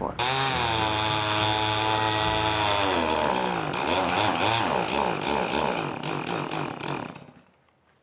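Stihl MS 291 two-stroke chainsaw in a chainsaw mill, ripping a pine log at full throttle. From about three seconds in its pitch sags and wavers under load. It dies out about seven seconds in, having run out of fuel.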